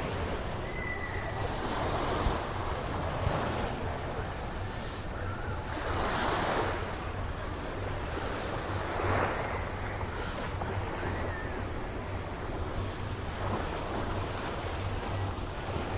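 Ocean surf washing onto a sandy beach, swelling as waves come in every few seconds, with wind rumbling on the microphone.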